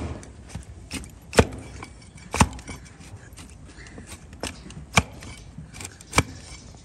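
Hoof-trimming blade cutting into a donkey's thick, overgrown hoof horn: a series of sharp, irregularly spaced cracks, four of them louder than the rest.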